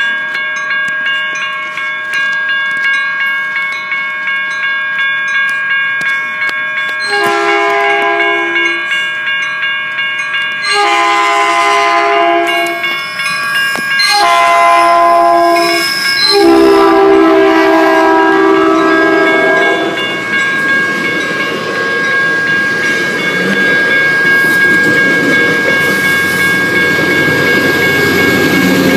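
Electronic railroad-crossing bells ringing steadily while a Caltrain commuter train sounds its horn in four blasts, starting about seven seconds in, the last the longest and loudest. After the horn the train runs through the crossing with a steady rushing rumble.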